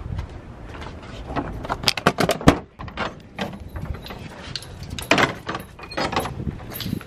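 A door being handled and opened: a run of clicks and knocks, with a sharp knock about two and a half seconds in and more clatter near the end.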